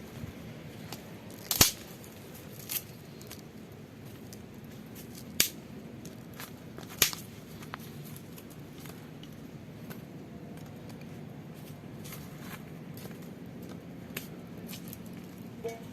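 Cooking sounds: a few sharp clicks and taps, three of them louder, over a steady low background noise.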